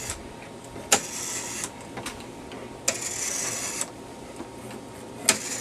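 Rotary telephone dial being dialed: three times it is pulled round and let go. Each time a click is followed by under a second of whirring as the dial spins back.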